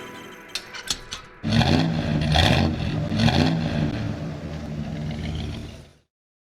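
A few sharp clicks, then an engine revving in repeated surges, rising and falling in pitch, cut off abruptly about six seconds in.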